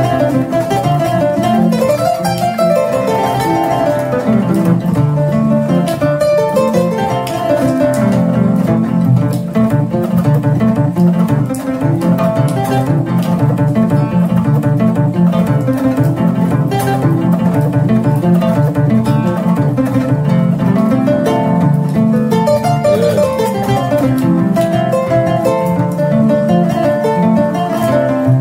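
Kora and acoustic guitar playing together: an instrumental passage of interwoven plucked-string melody and accompaniment.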